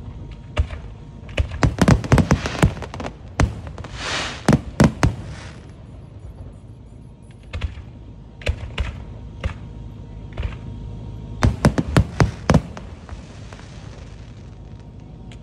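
Aerial display shells and comets being launched and bursting, heard as sharp bangs. They come in dense runs about two to five seconds in and again around twelve seconds, with scattered single bangs between.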